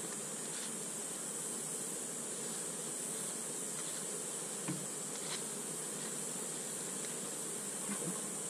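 Honeybees buzzing steadily around an opened hive, with a couple of faint clicks about halfway through.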